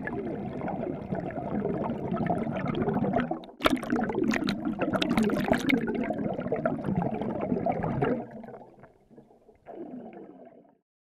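Underwater bubbling and gurgling heard through a submerged camera's microphone, with a run of sharp crackling splashes around four to six seconds in. It fades after about eight seconds, with one short last burst near the end.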